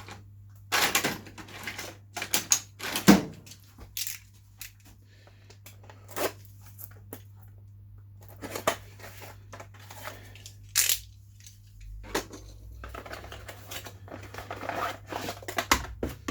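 Packaging being cut open with a knife and torn apart: irregular bursts of tearing and crinkling, over a faint steady low hum.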